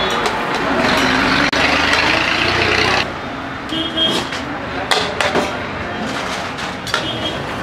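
Busy street-eatery ambience of traffic and voices, which changes abruptly about three seconds in to a quieter scene with a few sharp metallic clinks and a brief ringing from a steel ladle and steel plates as biryani is served.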